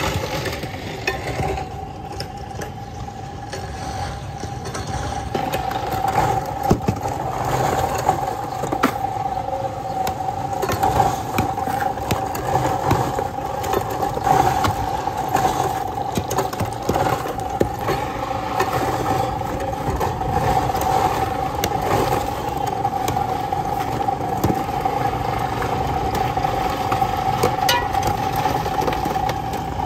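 A motor running steadily with a constant hum, with scattered clicks and clatters over it.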